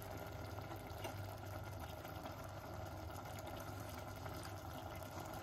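Sliced peppers and onions simmering and sizzling in a stainless steel pan, a faint, steady bubbling over a low hum.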